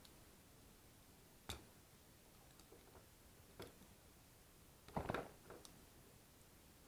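A few light clicks and knocks of small hard parts being handled, most likely the plastic plug and its pieces during rewiring. They come scattered, with the loudest cluster about five seconds in, against near silence.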